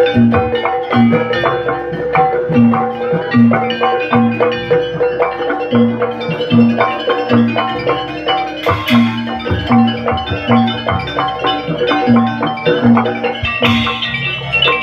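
Live jaranan gamelan music: a steady, regular drum rhythm under ringing bronze mallet-struck tones, played loud throughout.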